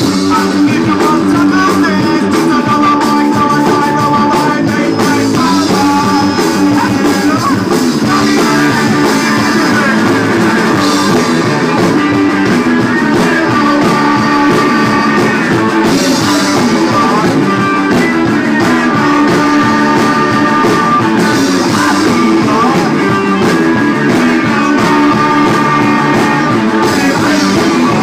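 Live rock band playing loudly and without a break: electric guitar and a Mapex drum kit, with a singer into a microphone.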